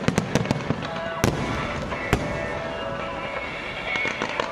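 Aerial fireworks bursting: a dense run of sharp cracks and pops over a continuous crackle, with two louder bangs about a second and two seconds in.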